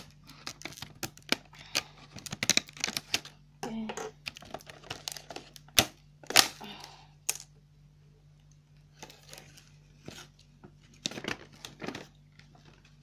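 Scissors snipping through a stiff plastic blister pack: a run of sharp clicks and crackles. About six seconds in the plastic crackles as it is pulled apart, and more snips and crackles follow near the end.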